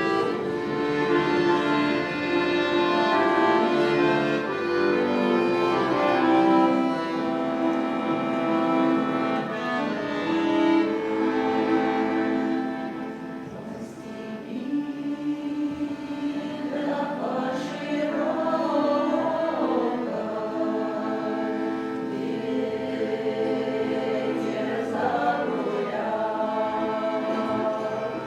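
Russian folk-song choir singing with accordion accompaniment. The first half is held, steady chords; wavering sung lines come in about two-thirds of the way through.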